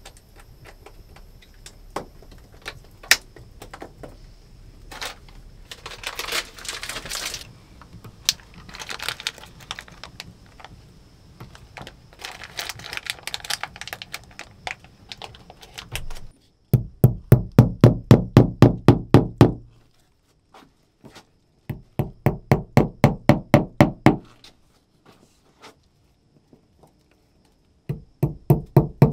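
Rapid knocking on wood, like hammering, in three bursts of about two to three seconds each at roughly five or six blows a second. The bursts come in the second half, after scattered clicks and short rustling handling sounds.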